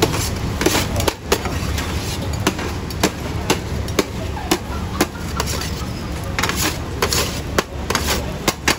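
Metal knife and spatula clacking and scraping against a steel tray while chopping and tossing shawarma chicken: sharp, irregular clacks about every half second over a steady low hum.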